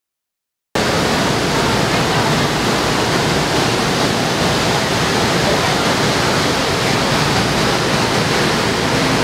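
Niagara Falls roaring: a loud, steady rush of falling water pounding onto the rocks at its base. It starts under a second in, after a short dead silence.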